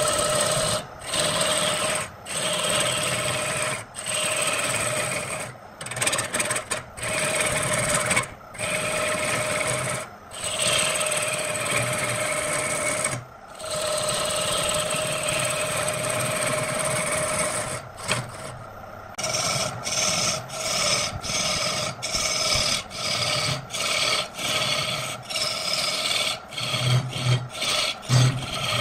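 A file or rasp worked by hand across wood in repeated strokes: long strokes of a second or two each with brief pauses between, then quicker, shorter strokes about twice a second in the last third.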